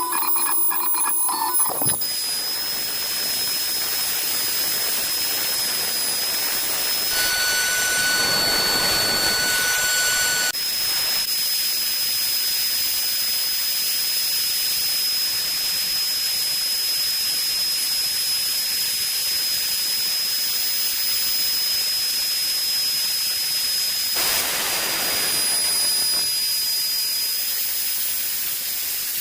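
Wood router spindle running with a steady high whine and a hiss of cutting, as it mills a wooden sign. For about three seconds, a third of the way in, a second set of steady tones joins the whine.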